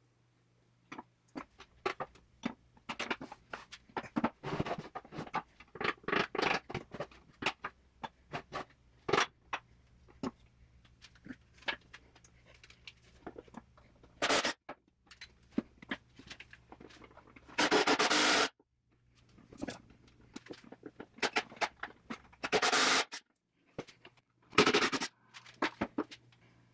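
A hand screwdriver scrapes and clicks many times against old painted-over screws in the box's metal hardware. Four short bursts follow from a Hercules cordless impact driver backing the screws out, the loudest lasting about a second.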